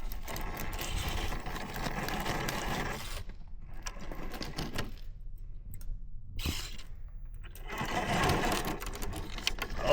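RC scale rock crawler's electric motor and drivetrain gears whirring in spurts as the truck claws at a rock, stopping and starting several times, with the tires scraping and grinding on stone.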